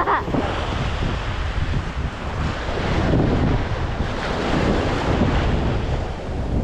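Wind buffeting the microphone over the steady wash of open water. It is a loud, even noise with a heavy low rumble.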